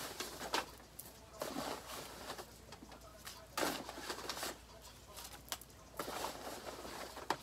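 Paper slips rustling as a hand rummages through them inside a bag, in repeated short bursts with a few sharp crinkles.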